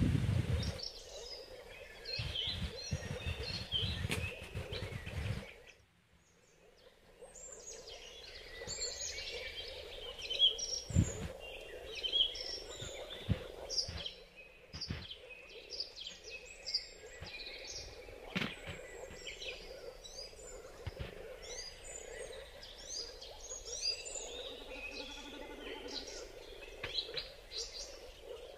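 Many birds chirping and calling, thick from about seven seconds in, over a steady background hum. The first five seconds hold rustling and knocking, and a few sharp knocks come later.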